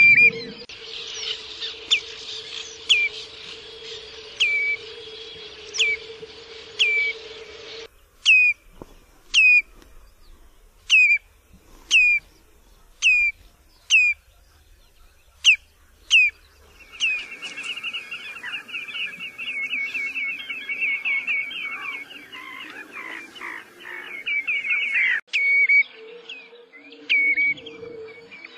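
Common redshank calling: short, piping whistled calls that drop sharply in pitch, about one a second. Midway comes a fast run of rapidly repeated notes lasting about eight seconds, then single falling calls again.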